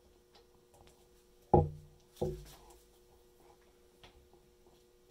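Icon 3/8-inch drive click-type torque wrench being worked on a nut held in a bench vise: two sharp metal clacks about two-thirds of a second apart, about a second and a half in, with light ticks around them.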